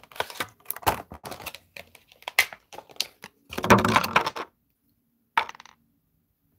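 Clear plastic packaging crinkling and clicking as it is handled and opened, in quick sharp crackles with the loudest burst about four seconds in, then a last short crackle a little later.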